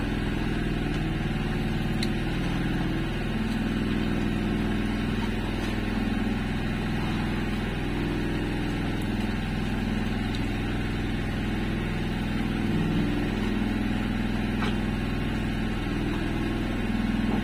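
Small engine running steadily at idle, an even low hum with no change in speed.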